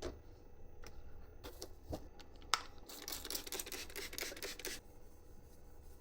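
Hands handling small parts: several light clicks and taps, then a scratchy rustle lasting nearly two seconds from about three seconds in.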